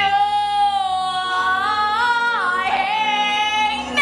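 A woman singing long held notes with vibrato in musical-theatre style. The pitch steps up around the middle, drops back, and a higher note starts near the end.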